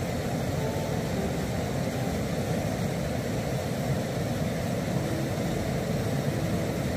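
Radio-controlled rock crawler climbing slowly up a rock crevice, its electric motor and gears working under load over a steady low rushing noise.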